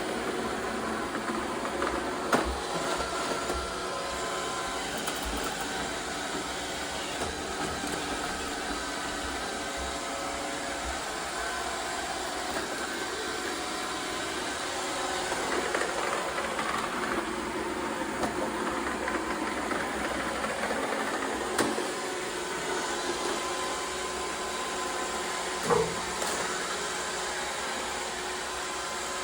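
iRobot Roomba 675 robot vacuum running: a steady whirr of its motors with a few faint steady tones, broken by three short sharp knocks, one early and two near the end.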